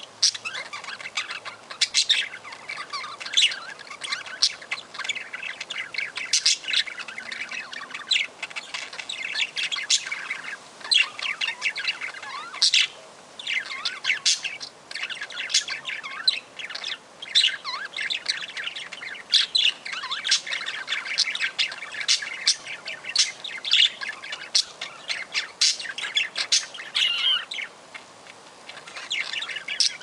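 Budgerigar chatter: a near-continuous run of quick, high chirps and warbles with short breaks.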